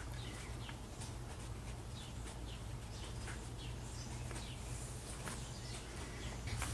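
Quiet background: a steady low hum with faint, scattered bird chirps.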